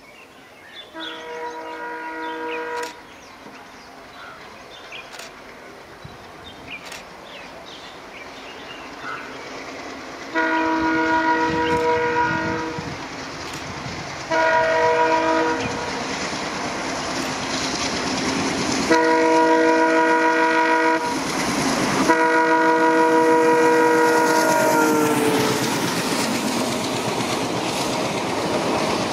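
ALCO diesel locomotive approaching and sounding its multi-tone air horn in five blasts: a short one near the start, then longer ones from about ten seconds in. The last blast drops in pitch as the locomotive passes, and the rush and clickety-clack of the passenger coaches follow, growing louder.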